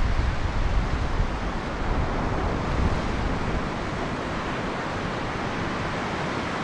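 Ocean surf breaking and washing on the shore, a steady rushing noise. Wind buffets the microphone with a low rumble in the first second or so.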